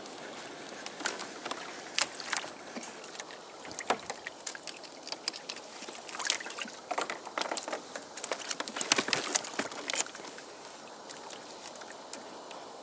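Water lapping and sloshing against a kayak hull, with irregular sharp clicks and knocks from rod, reel and gear handling as a fish is reeled in and taken aboard. The knocking stops about ten seconds in, leaving only the water.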